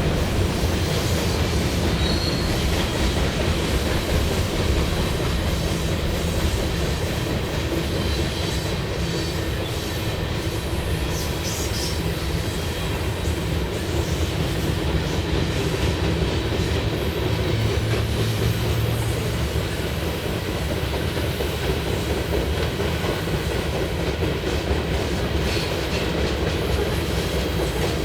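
Freight cars of a manifest train rolling past: steady rumble and clatter of wheels over the rail joints, with a few brief wheel squeals.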